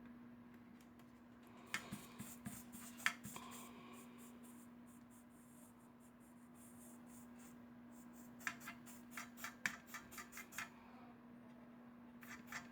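Small hand tools handled on a laptop repair bench: two quick runs of light clicks and taps, and a few more near the end, over a steady low hum.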